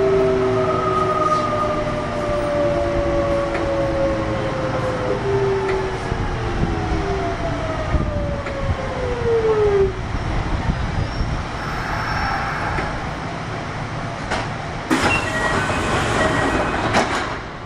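Kintetsu 1021 series electric train with a Hitachi GTO VVVF inverter braking into a station, heard from inside the car. The inverter and traction motor whine falls steadily in pitch and fades out about ten seconds in. Rumbling wheel and track noise follows, with a few sharp clacks and some hiss near the end as the train slows to a stop.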